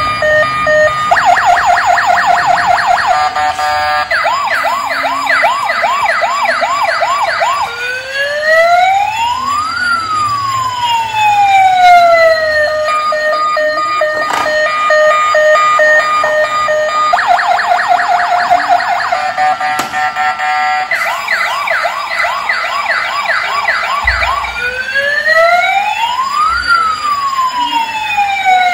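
Battery-operated toy police car playing its electronic siren sound effects from a small speaker: runs of fast warbling yelps, then slow rising-and-falling wails, with the sequence starting over about halfway through.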